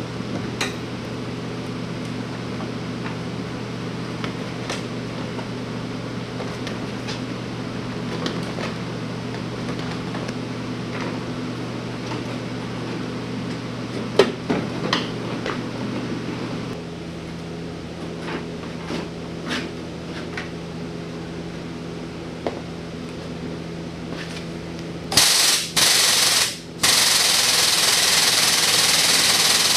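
Steady electrical hum of shop machinery, with scattered clanks and knocks of metal parts being handled; the hum's lowest note drops out a little past halfway. About 25 seconds in, a loud compressed-air tool starts, running in bursts with short pauses.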